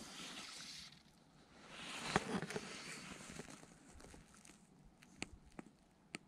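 Fly rod and fly line being handled: a rustling hiss as the line is drawn through the fingers, loudest with a sharp click about two seconds in, then a few separate light clicks near the end.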